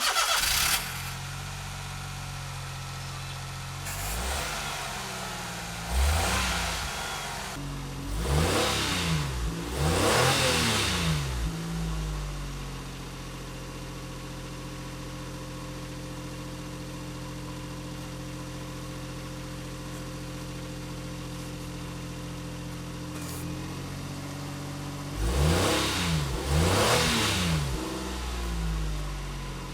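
Daihatsu Hijet S321 van's three-cylinder engine starting, settling into a steady idle, and being revved: a run of blips a few seconds in, then two more near the end, each rising and falling in pitch.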